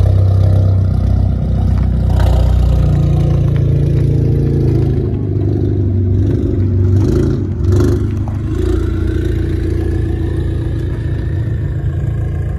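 Kia K5 sedan's engine and exhaust running, with a deep, loud exhaust note that rises and falls. A faint high whine joins about nine seconds in.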